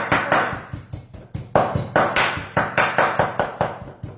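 Large kitchen knife chopping raw beef on a wooden cutting board for tartare: quick rhythmic knocks, about five a second, with a short pause about a second in.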